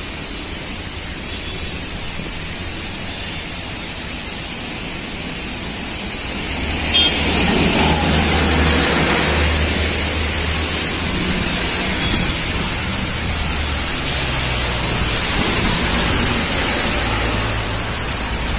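Heavy rain pouring onto a wet road, a steady hiss that grows louder about seven seconds in, with the low rumble of traffic on the wet road underneath.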